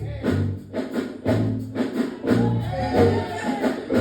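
Backing beat with a repeating bass line and percussion, and a voice rising over it about two seconds in.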